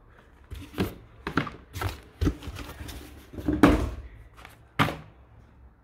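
Paperboard product box being handled and set down on a desk: a run of short scuffs and knocks, the loudest about three and a half seconds in.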